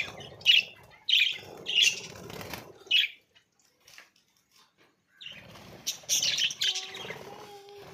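A flock of budgerigars chirping and chattering in short bursts, with a pause of about two seconds midway before the chatter picks up again.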